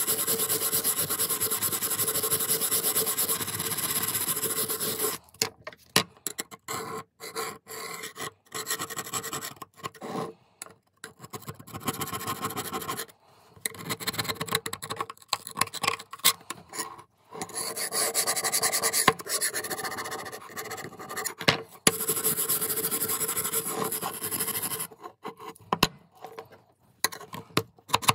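Abrasive rubbing and scraping on the rusty steel of an old Bahco adjustable wrench, in quick rasping strokes. It is steady for the first five seconds, then comes in short runs with pauses, with a longer steady stretch after about eighteen seconds and a few light metallic clicks near the end.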